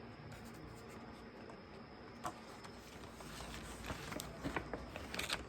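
Faint rustling and light clicks of a package and its wrapping being handled, growing busier after about three seconds with a short flurry near the end.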